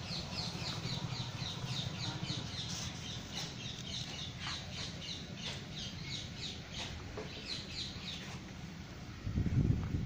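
A small animal calling in a fast series of short, high chirps, each falling in pitch, about four a second, which stop shortly before the end. Near the end a low bump, the loudest sound.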